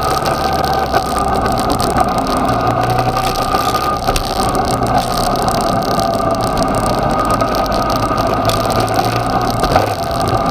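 Yamaha XJ6's inline-four engine running steadily at low revs and low road speed, heard with wind rush on the motorcycle-mounted microphone and a steady whine over it.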